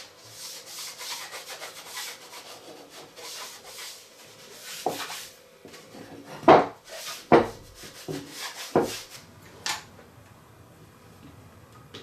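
A wooden dowel rod being worked by hand: quick, even rubbing strokes of abrasion on wood for about five seconds, then four or five sharp wooden knocks about a second apart.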